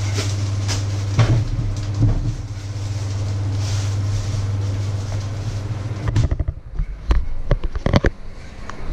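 A steady low electrical hum with a few light knocks stops about six seconds in. A run of knocks and rubbing follows as the camera is picked up and moved.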